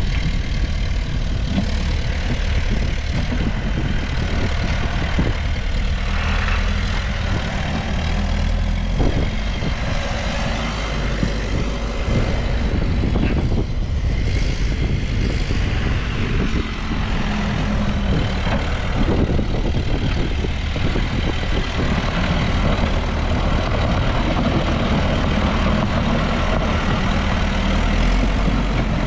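New Holland backhoe loader's diesel engine running steadily while working, its note rising and falling with load, with a few short clunks along the way.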